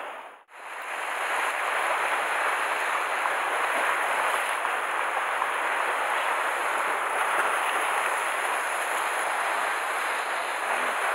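Sea surf washing and breaking against a rocky shore, a steady rushing hiss that starts after a brief silent gap about half a second in.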